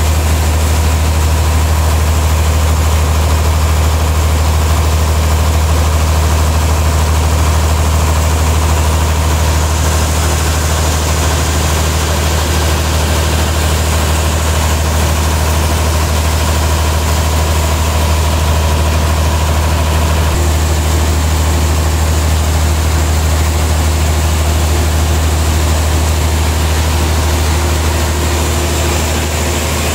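Sawmill's stationary engine running steadily, a deep, even hum that holds without change.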